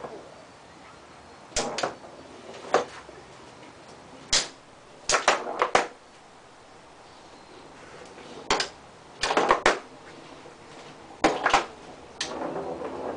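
Foosball table in play: sharp clacks and knocks of the ball, plastic players and rods, coming at irregular intervals, several in quick runs of two or three.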